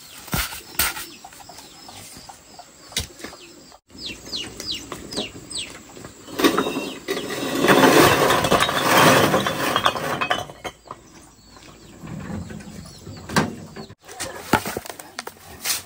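Hollow clay bricks tipped out of a wheelbarrow, clattering and scraping onto the ground for about three seconds past the middle; this is the loudest sound. Before it, a bird chirps a quick run of calls, and scattered sharp knocks are heard.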